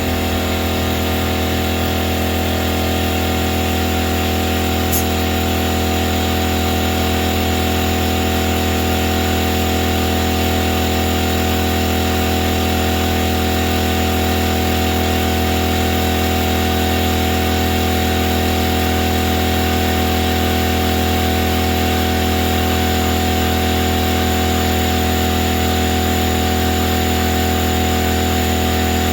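Air compressor running steadily with a constant drone, feeding air into a tire to seat its bead, which is not yet fully locked.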